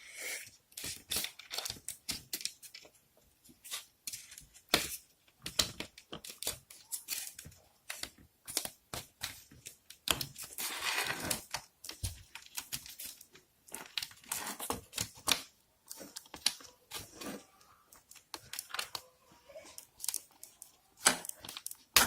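Fiddly handling noises as a wire harness and its plugs are worked through the plastic hinge slot of a fridge door: scattered clicks, rustles and plastic scrapes, with a longer rustle about ten seconds in.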